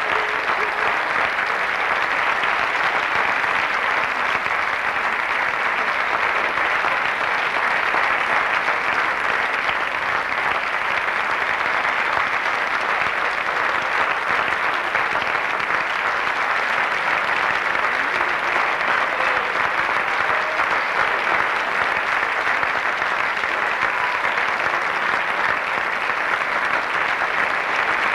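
Theatre audience applauding steadily at the curtain call that ends a stage performance.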